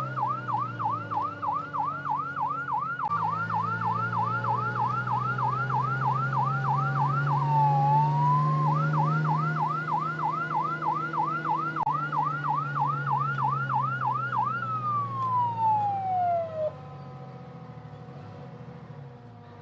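Fire engine siren on a fast yelp, sweeping up and down about three times a second over the truck's engine running. The yelp breaks briefly about halfway, then resumes. Near the end the siren winds down in a falling tone and stops, leaving only a quieter engine sound.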